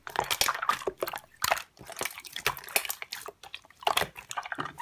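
Slime being squeezed and pressed by hand, giving irregular wet clicks, crackles and small pops.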